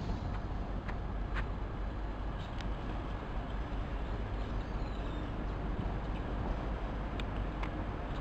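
Steady rumble of trains in a railway station, with a few brief sharp clicks.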